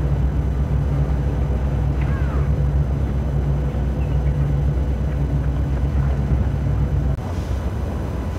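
Steady low engine rumble of a boat underway at sea, with a faint steady hum above it. About seven seconds in it drops in level and changes.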